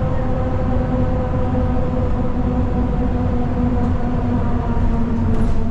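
Steady drone inside a city bus cabin: low rumble from the bus's drivetrain and road noise, with an even whine of several steady tones over it.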